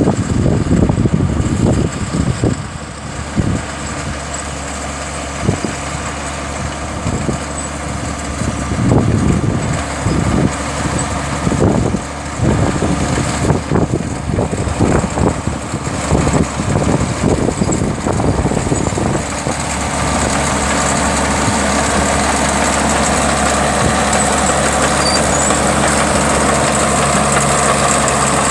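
Tractor engine running, uneven and surging for most of the time, then settling to a steady idle about two-thirds of the way through.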